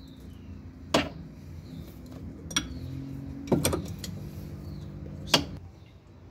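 A steel ring spanner clinks against the cast-iron manifold of a Volvo Penta MD7B marine diesel as its bolts are undone and the part is worked loose. There are about five sharp metal clinks, two of them close together in the middle, over a faint low hum.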